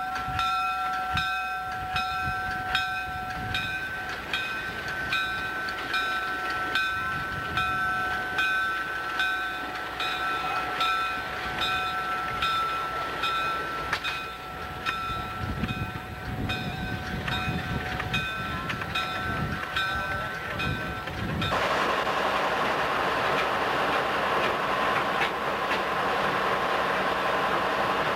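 Wabash 51 diesel locomotive's bell ringing steadily, about one and a half strokes a second, over the low rumble of the locomotive. About 21 seconds in the bell stops, and the engine and cab noise becomes louder and steadier.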